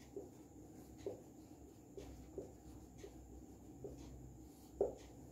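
Marker pen writing on a whiteboard: short faint squeaks and taps about once a second, the loudest near the end.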